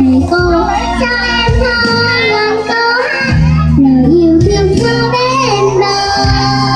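A young girl singing a melody into a microphone over amplified instrumental backing music with a steady bass line.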